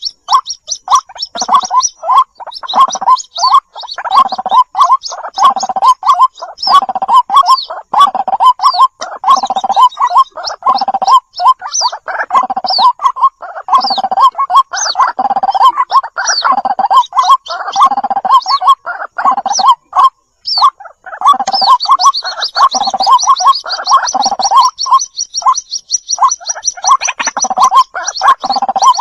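White-breasted waterhen chicks calling for their mother. The calls repeat about once a second in a continuous series, with thin, rapid, high peeping over them that thickens in the last several seconds.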